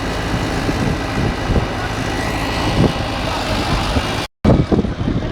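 Tractor engine running steadily, with faint voices in the background. The sound cuts out completely for a moment about four seconds in, then resumes.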